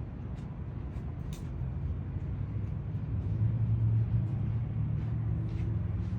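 Low engine rumble that swells about halfway through and eases off toward the end, with a few faint ticks.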